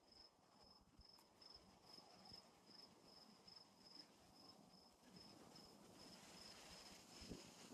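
Faint cricket chirping, an even high-pitched pulse repeating a few times a second.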